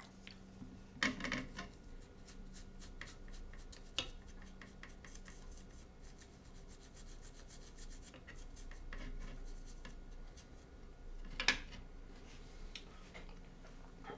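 Quiet rubbing and scraping with many small clicks and a few sharper taps, the loudest about a second in and near the end: hand work with small tools on a router's circuit board.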